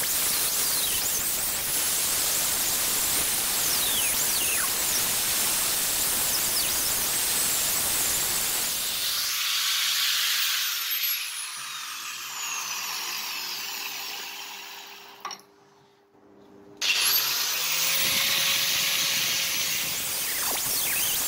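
Random orbital sander running against a wooden knife handle, a steady loud hiss. About nine seconds in it winds down and goes quiet. A few seconds before the end it spins back up and sands again.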